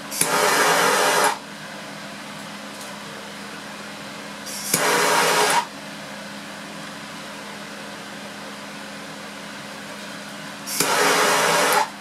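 Hand-held gas torch rushing in three bursts of about a second each: near the start, about five seconds in, and near the end. Each burst is a pass of the flame under the generator flask, heating it to speed up carbon monoxide production.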